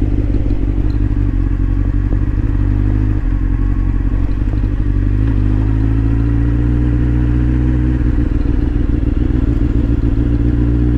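2008 Honda CBR1000RR's inline-four engine running at low revs as the bike rolls slowly, a steady low engine note that edges up in pitch in the second half.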